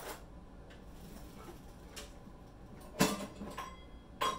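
A few scattered clinks and clatters of kitchen utensils, the loudest about three seconds in and a sharper clink just before the end.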